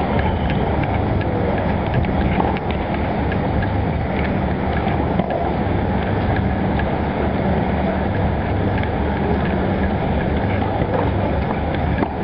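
Wind rumbling on the camera's microphone, a steady low noise that swells and eases, with a few faint knocks now and then.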